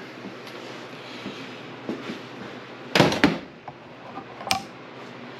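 A quick cluster of sharp knocks about three seconds in, then a single sharp click about a second and a half later: handling noise from a tool being worked or set down around the engine stand.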